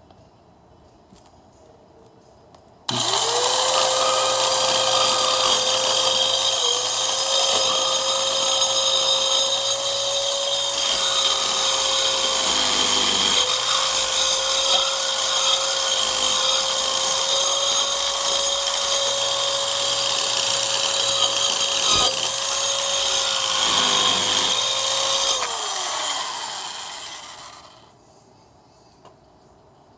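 Hyper Tough mini circular saw's motor starting abruptly about three seconds in, running at a steady high whine for some twenty seconds, then switched off and spinning down with a falling pitch.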